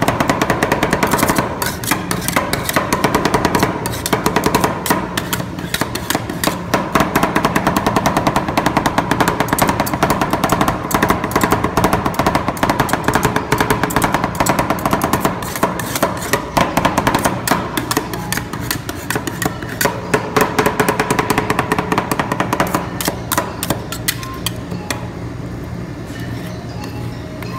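Two metal spatulas chopping rapidly on a steel rolled-ice-cream cold plate, a fast clatter of metal strikes through ice cream mixed with crushed biscuits. Near the end the strikes die away as the mix is scraped and spread flat.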